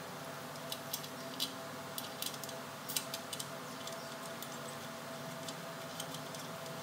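Irregular sharp clicks and light taps from hand work at a truck's new front air brake chamber, bunched in the first few seconds and sparser later, over a steady background hum.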